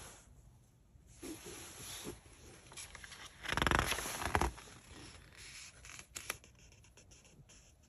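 A page of a printed book being turned by hand: a paper rustle lasting about a second near the middle, followed a little later by a couple of faint ticks.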